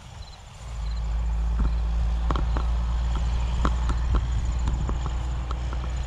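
Footsteps pushing through dry brush and grass, with irregular crackles and snaps of stems underfoot, over a steady low rumble on the microphone that starts about a second in.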